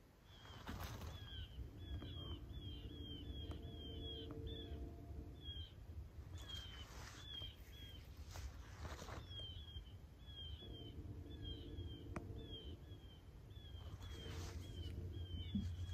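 Small birds chirping in the woods: runs of short, high, down-slurred chirps, about three a second, broken by pauses, over a low background rumble.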